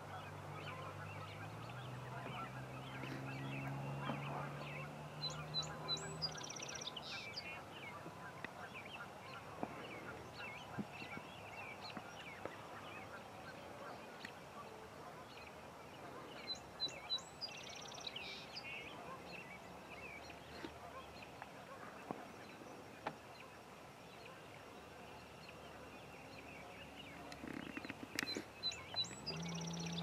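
A flock of geese honking in a continuous, crowded chorus. A short, high bird song breaks in about every eleven seconds.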